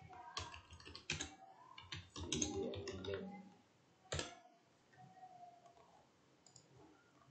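Typing on a computer keyboard: a quick run of keystrokes for about three seconds, then one louder click about four seconds in.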